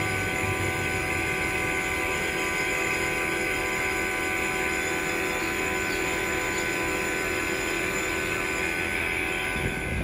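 Machinery running steadily, with an even hum of several tones over a low rumble.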